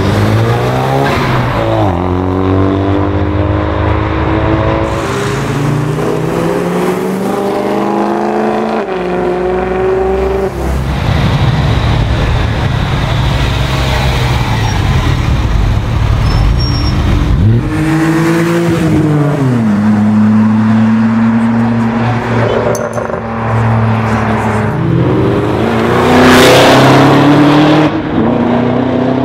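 Sports cars driving past one after another, engines revving up in pitch as they accelerate and stepping down at gear changes. The loudest moment comes near the end, when one car accelerates hard with a full-throttle engine note.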